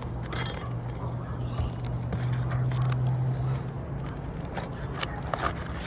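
Asphalt shingles being worked loose by hand: scattered light scrapes and clicks over a steady low machine hum.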